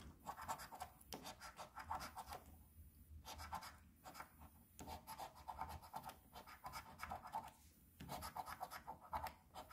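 A metal coin scraping the coating off a lottery scratch-off ticket, in quick rasping strokes that come in several spells with short pauses between them.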